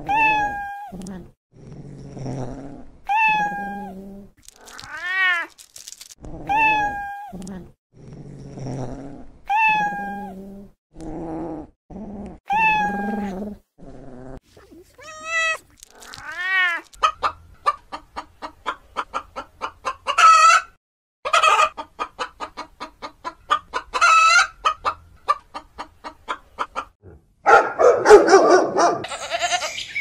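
A cat meowing repeatedly, each meow a drawn-out call that rises and falls, coming every second and a half or two, with lower calls in between. From about halfway, a hen clucking rapidly with a few louder squawks. A loud harsh call comes near the end.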